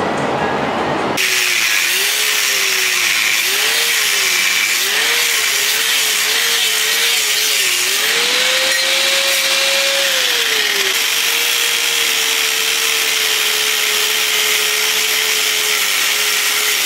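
A power tool cutting through steel L-bracket stock, starting about a second in and running on, its motor pitch wavering under the load of the cut and rising briefly about halfway through.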